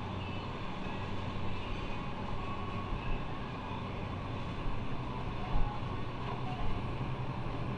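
Motorcycle engine running steadily under way, with wind and road noise; the engine note rises a little about five seconds in.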